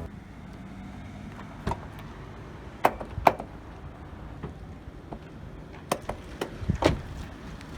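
Lexus CT200h door being opened and shut, giving a string of sharp clicks and knocks. The loudest come about three seconds in and again near the end. This is the abnormal noise the door makes on opening and closing.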